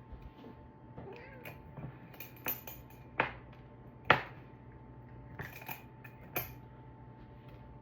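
A cat being given treats: a few sharp clicks and taps, loudest a little after three and four seconds in, over faint small cat sounds.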